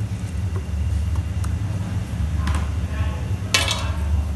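A large aluminium cooking pot full of boiling corn cobs being handled: a sharp metallic clink with a short ring about three and a half seconds in, with a few lighter knocks before it. A steady low rumble runs underneath.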